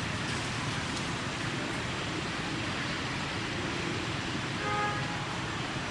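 Steady outdoor background hiss and rumble, with one short high-pitched sound near the end.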